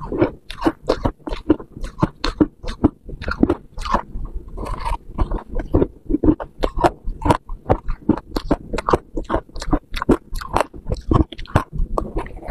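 Freezer frost being chewed: rapid crisp crunches, about four a second, one mouthful after another.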